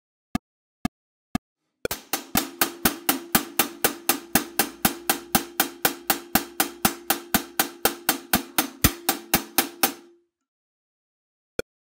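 Four count-in clicks half a second apart, then a drum-kit hi-hat played in steady eighth notes at 120 BPM, about four strokes a second, over a steady low hum. The playing stops about two seconds before the end.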